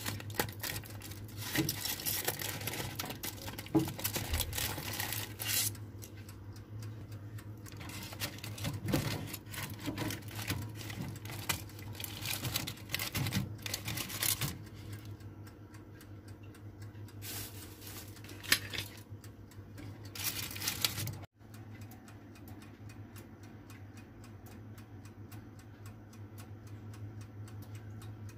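Kitchen work: irregular clinks and clatter of utensils and cookware, with stretches of hissing, over a steady low hum. About three quarters of the way through the clatter stops and only the hum is left.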